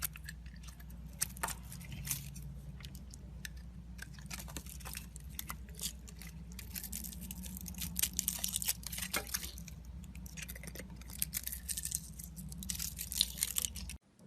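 A knife carving and scraping a bar of soap: dense, irregular crisp crunching and crackling, which stops abruptly near the end.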